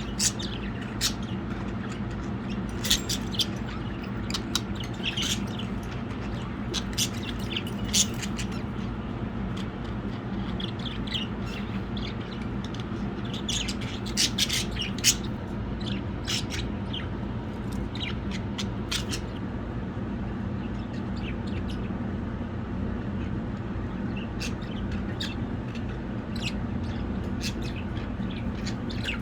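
Pet budgerigars chirping and chattering in short, sharp calls, in flurries with quieter stretches between, over a steady low hum.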